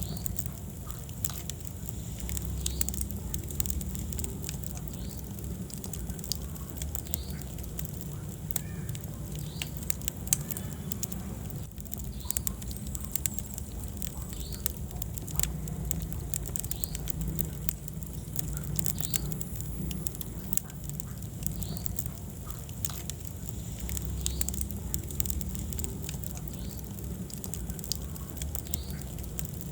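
Wood fire burning in a fireplace: steady crackling and small pops over a low rumble of the flames, with one sharper pop about ten seconds in.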